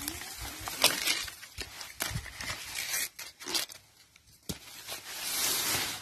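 Corn leaves and stalks rustling and crackling as hands work through cut corn plants, with several sharp, irregular snaps. The rustling grows louder near the end.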